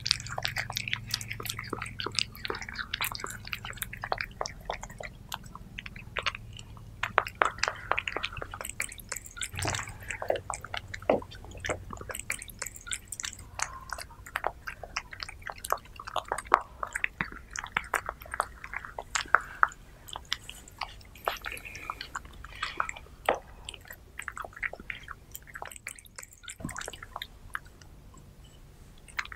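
Two cats eating soft minced-meat loaves: a dense, irregular run of wet licking laps, smacks and chewing clicks.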